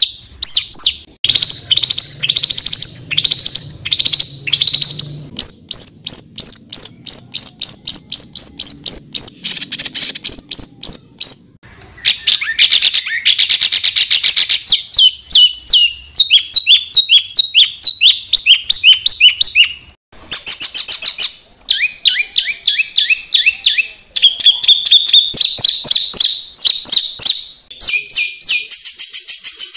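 Songbird song of tight, rapid 'tembakan' phrases: runs of fast repeated high chirps, some sliding down in pitch. It switches abruptly to a different phrase every several seconds.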